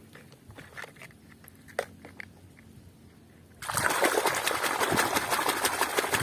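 A few faint clicks of handling, then about three and a half seconds in, water starts gushing loudly onto a muddy toy car as it is rinsed clean.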